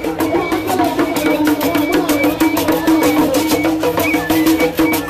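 Hausa traditional drumming: a troupe beating shoulder-slung hand drums in a fast, steady beat, with a steady droning tone underneath.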